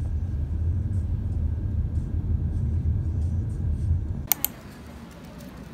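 Low rumble of a moving car, heard from inside the cabin. About four seconds in it drops off suddenly with two sharp clicks, leaving a quieter hum.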